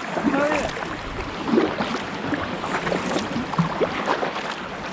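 Sea water splashing and dripping around an inflatable kayak as it is paddled: a busy, irregular run of small splashes and paddle strokes.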